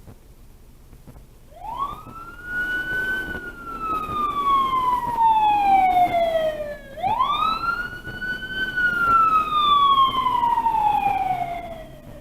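Fire engine siren wailing through two slow cycles. Each time it rises quickly, then falls gradually over about five seconds, with the second rise coming about seven seconds in.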